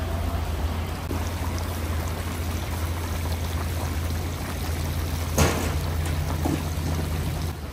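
Broth with chickpeas and yellow carrots boiling in a huge kazan: a steady bubbling, pouring-like liquid noise over a constant low hum, with a single sharp clack about five and a half seconds in.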